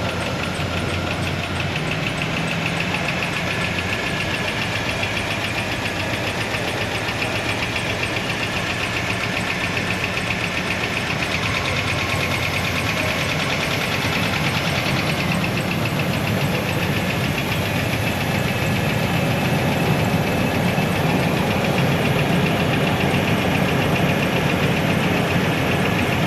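2001 Chevy Astro's 4.3 V6 running with a steady, rapid rhythmic pulsing, a little louder in the second half. The engine has a misfire on one cylinder.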